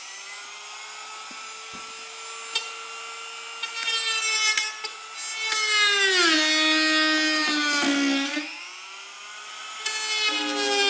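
Corded rotary tool on speed setting four, a steady high whine, cutting into the plastic seam of a car tail light housing with a small cutting wheel. About six seconds in, its pitch drops as the wheel bites into the plastic, then climbs back near nine seconds.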